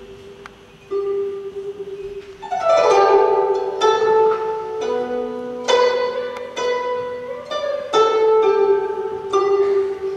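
Guzheng (Chinese zither) played solo: a soft single note, then a rapid sweep across the strings about two and a half seconds in, followed by loud plucked notes that ring and die away.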